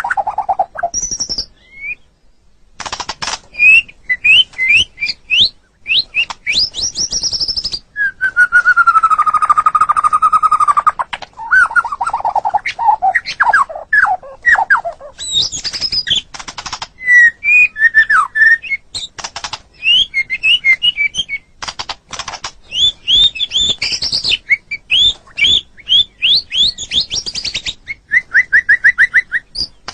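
White-rumped shama singing a varied song of clear whistled phrases: quick runs of rising notes, a long held whistle about eight seconds in, a run of falling notes after it, and near the end a series of short upward-sweeping notes repeated in quick succession.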